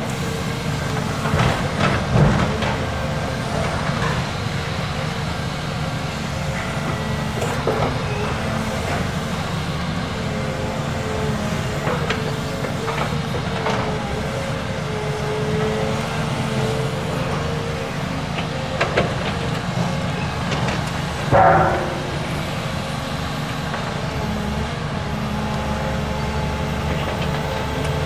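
Volvo wheeled excavator's diesel engine running steadily under load, with a wavering whine above it. Occasional clanks and crunches as the machine works the demolition rubble, the loudest crash about three-quarters of the way through.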